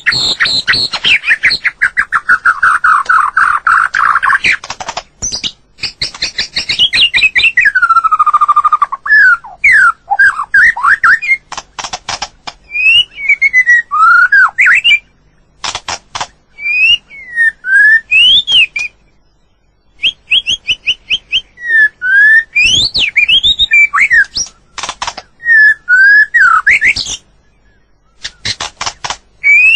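White-rumped shama singing: varied phrases of clear whistles that slide up and down, mixed with fast rattling, clicking trills. The phrases are separated by brief pauses.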